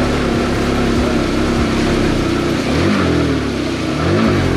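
Yamaha R15 M motorcycle's single-cylinder engine running under way, revved up and back down twice in quick succession near the end.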